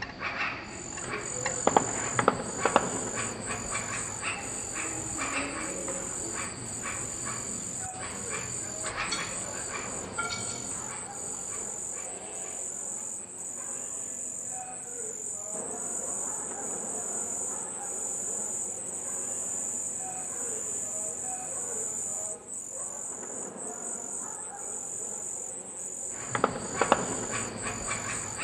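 Insects, crickets by the sound of it, chirping in a high, evenly pulsed trill over a fainter background, with a few sharp clicks about two seconds in and again near the end.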